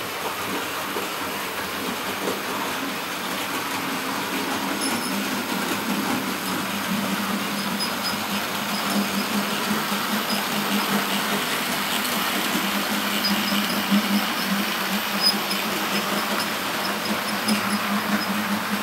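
A 00 gauge model train, two model steam locomotives double-heading a rake of Pullman coaches, running along the track: a steady rumble of small electric motors and wheels on rail with light clicking, growing a little louder as the train passes close.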